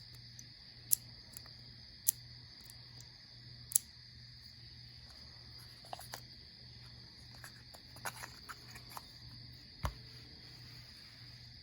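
Faint steady high-pitched insect chorus, with a few sharp clicks in the first four seconds and scattered small ticks and a soft thump later from small objects being handled.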